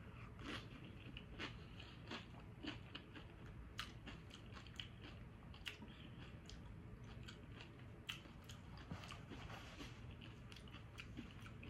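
A person chewing a mouthful of burrito bowl, faint, with irregular small crunches and clicks.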